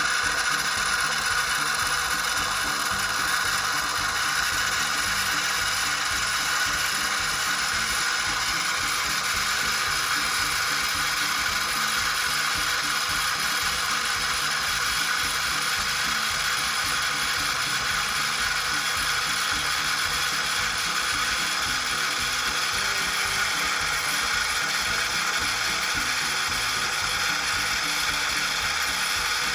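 Philips automatic coffee machine running steadily, a constant mechanical hum with a light rattle that keeps an even level throughout.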